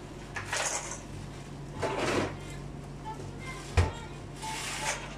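A large kitchen knife cutting a sheet of pici pasta dough into strips on a cutting board: a soft swish with each cut, every second or two, and one sharp knock of the blade on the board a little before four seconds in, over a steady low hum.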